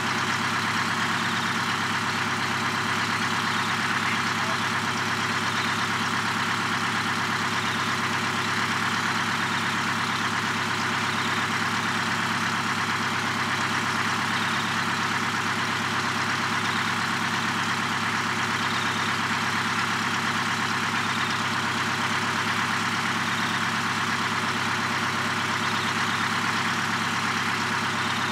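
Heavy diesel truck engine idling steadily, with no change in speed.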